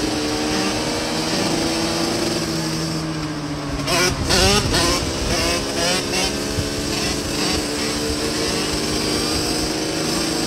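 Motorcycle engines running at a steady speed, with a louder stretch about four seconds in where the pitch briefly climbs and falls in quick revs.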